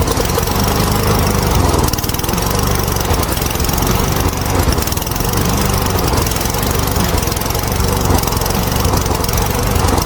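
Stihl chainsaw's two-stroke engine running steadily, with its new clutch and clutch drum fitted.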